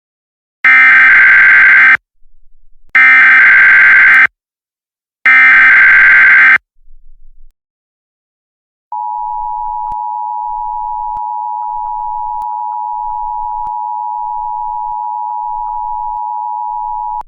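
Emergency Alert System SAME header: three short bursts of digital data tones, each just over a second long and evenly spaced. A couple of seconds later the EAS attention signal starts, a steady two-tone beep held for about eight seconds. It signals that a tornado warning message is about to be read.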